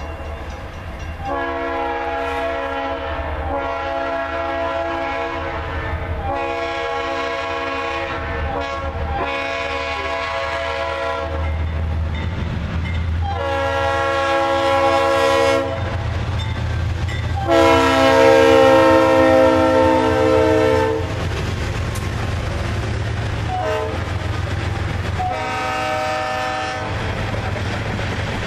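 A CSX freight train's locomotive air horn sounding a series of long and short blasts as the train approaches, the loudest about 18 s in, over a rising low diesel rumble. Near the end, freight cars roll past with a clatter of wheels on the rails.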